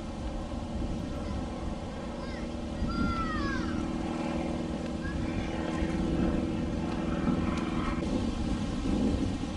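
Outboard motor of a passing pontoon boat droning steadily over a low rumble, a little louder from about three seconds in. A few short falling whistles sound briefly around the middle.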